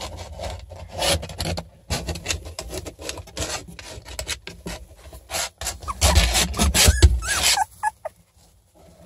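Wood-shaving bedding rustling and scraping as a litter of young beagle puppies crawl and shuffle over it, in many short scratchy bursts that are heaviest about six to seven and a half seconds in, then die away.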